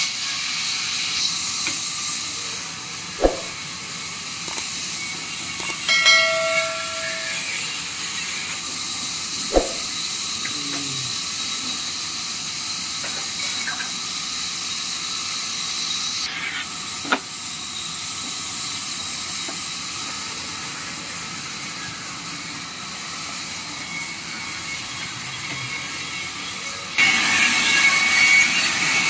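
Steady high hiss of a sawmill running, broken by a few sharp knocks. Near the end it gets louder as a vertical band saw starts cutting into a wooden slab.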